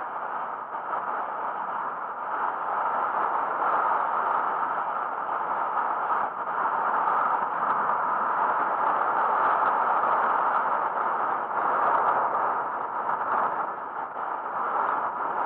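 Steady rushing wind and road noise picked up by a camera on a road bicycle moving at speed.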